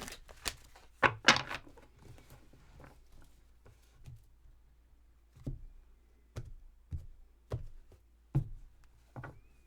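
Irregular light thunks and taps of tarot cards being handled and laid down on a table, about ten in all, the loudest pair about a second in.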